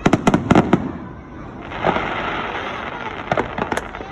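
Fireworks: a quick volley of sharp bangs in the first second, then a dense steady crackle with scattered pops.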